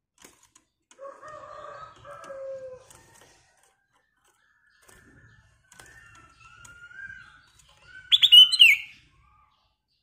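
Black-crested bulbul (kutilang emas) singing clear whistled phrases in three bursts. The last burst, about eight seconds in, is the loudest and ends in a falling whistle. Light clicks are heard now and then as the bird hops on its perch.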